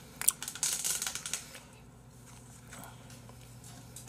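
Chopsticks clicking and picking through pork trotter meat in a plastic takeout tray, with crisp rustling. A quick run of sharp clicks comes in the first second or so, then it goes quiet.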